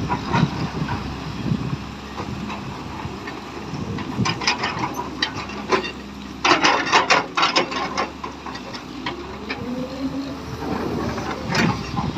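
Excavator at work: its diesel engine runs with a steady low hum, and bursts of clattering knocks come in clusters, the densest and loudest a little past the middle. A rising tone is heard late on.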